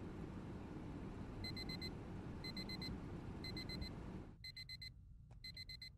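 Digital alarm clock beeping in quick groups of four, one group a second, starting about a second and a half in. A low room hum underneath cuts out partway through while the beeping goes on.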